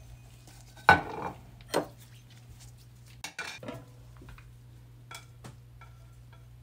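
A glass lid and a cooking pot clanking, with chopsticks knocking in the pot: one sharp clank about a second in, another just before two seconds, then several lighter knocks and clicks, over a low steady hum.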